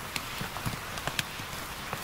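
Seasoning sauce bubbling and sizzling in a frying pan as it reduces around king oyster mushroom slices, with scattered pops and soft knocks.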